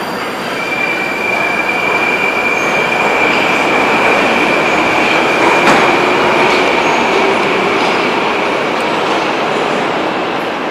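Metrowagonmash 81-765/766/767 'Moskva' metro train pulling out along the platform and into the tunnel, with a steady rolling rumble and a steady high tone over it that fades near the end. A single sharp knock sounds about halfway through.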